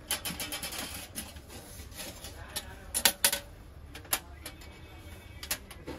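A quick rattle of small clicks in the first second, then a few sharp separate knocks, the loudest a pair about three seconds in, like objects being handled and set down.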